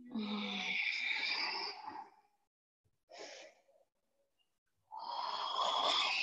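A woman breathing deeply and audibly during a yoga flow. There are two long breaths of about two seconds each, with a short one between them.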